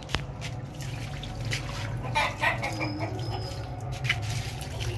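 A sharp knock at the start, then a hen clucking about two seconds in, while water is poured from a pan onto clay plant pots.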